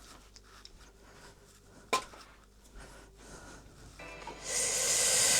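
Plastic transport clips being worked free of a 3D printer: a single sharp click about two seconds in, then a rustling scrape of plastic near the end.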